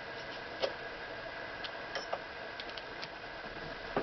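A few light, scattered clicks and taps of metal tools and parts being handled on a vintage Singer 127 sewing machine as it is dismantled, over a steady background hiss.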